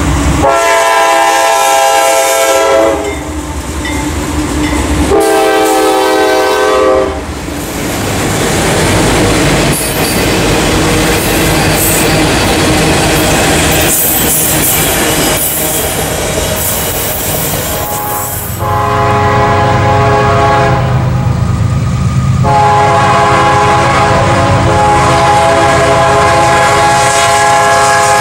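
A diesel freight locomotive's horn blows two blasts as the CSX train approaches. Its freight cars then roll past with steady wheel-on-rail rumble and clicking over the rail joints. About two-thirds of the way through, a locomotive horn blows again, long, with one short break, until the end.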